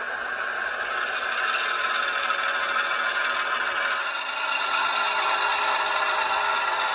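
Diesel switcher engine sound from an ESU LokSound sound decoder, playing through an HO scale locomotive's small onboard speaker as it runs steadily, mixed with the rattle of the model's wheels and mechanism on the track. The sound shifts slightly about four seconds in.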